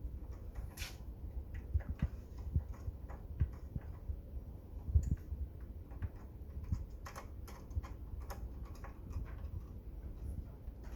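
Scattered light clicks and taps, a few a second at irregular spacing, over a low rumble, with one sharper knock about five seconds in.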